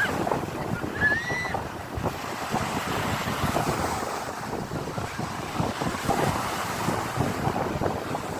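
Sea waves washing onto the shore: a steady rush of surf with fine crackling swash, swelling and easing. A short high chirp sounds about a second in.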